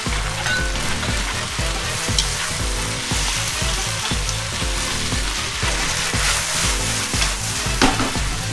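Rice noodles, beef and bean sprouts sizzling hard in a hot wok as they are tossed and stirred with wooden chopsticks, over background music with a steady beat. There is a single sharp knock near the end.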